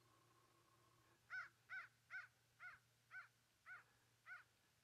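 Diaphragm predator call blown as cottontail rabbit distress cries: a quick series of seven cries, about two a second, each rising and falling in pitch, starting about a second and a half in.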